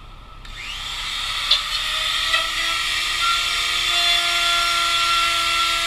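Handheld electric router spinning up over the first couple of seconds, then running steadily with a high whine as it cuts the Tuttle box cavity into a surfboard.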